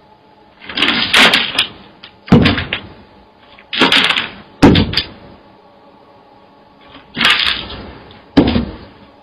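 Three heavy bangs, each coming just after a short rush of noise, spaced about three seconds apart; the first about two seconds in, the last near the end.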